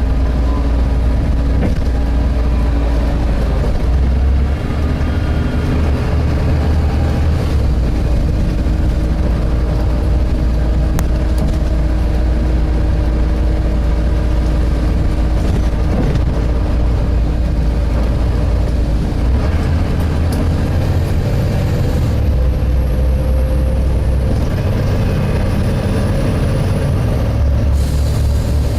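Volvo B7TL double-decker bus's diesel engine running under way, heard inside the passenger saloon as a loud, steady low drone with a steady hum over it. From about 20 seconds in, a faint high whistle wavers for several seconds.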